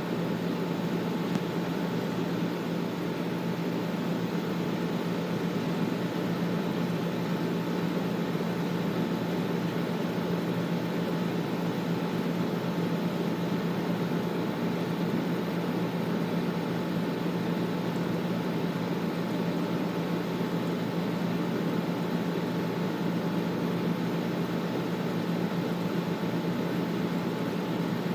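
Air conditioner running steadily: an even rush of fan noise with a low hum.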